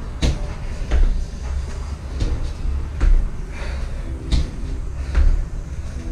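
Dull thuds on the floor from someone exercising, coming in pairs about every two seconds.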